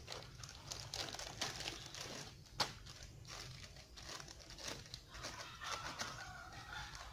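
Plastic packaging crinkling and rustling in irregular crackles as a gauze pad is handled and pulled out of its packet, with one sharp crackle about two and a half seconds in.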